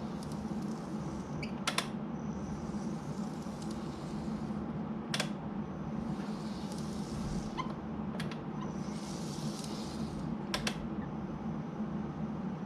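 N-gauge model tram (KATO Hiroshima Electric Railway 1000 series) running on track: a steady low motor hum, with a sharp click every three seconds or so.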